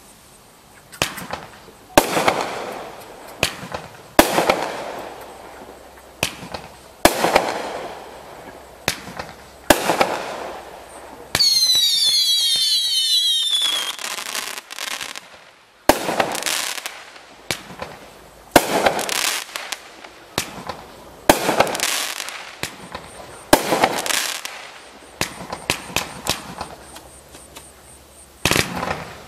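A 500 g consumer fireworks cake firing shot after shot, one sharp bang every one to two and a half seconds, each trailing off into crackle. About halfway through, several whistling shots scream at once, falling in pitch for about two seconds.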